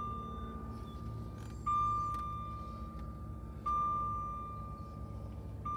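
Jaguar XK8's electronic warning chime sounding a single ding about every two seconds, each note starting sharply and fading, over a steady low hum.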